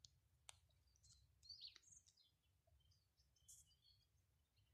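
Near silence with faint, high, short bird chirps now and then and a couple of soft clicks.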